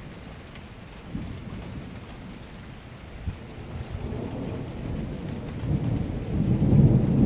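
Thunder rumbling, deep and growing steadily louder, loudest near the end.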